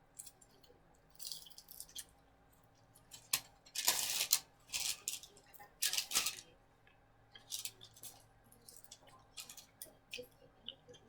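Takeout packaging and paper napkins being handled: short bursts of rustling and crinkling, about six times, with a few light clicks between them.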